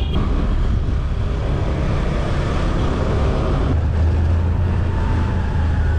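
A two-wheeler's engine running while riding along, with a steady heavy rumble of wind on the microphone.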